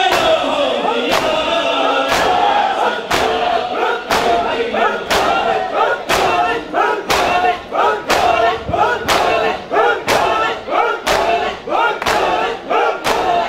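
Shia mourners doing hand matam: a crowd of men chanting a noha together while striking their chests with their palms in unison. The blows come about once a second at first and quicken to about two a second from about five seconds in.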